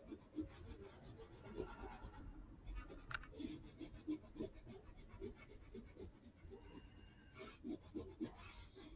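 Faint, irregular scratchy rubbing of a rubber on watercolour paper, lifting off dried masking fluid in short strokes.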